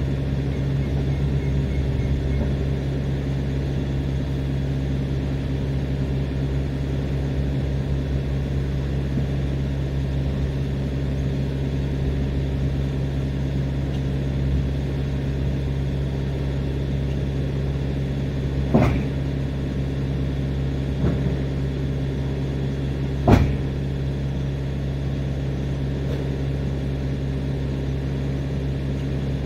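Steady diesel engine hum from the idling delivery truck and its refrigeration unit, with a few sharp knocks in the second half, the loudest about two-thirds of the way through.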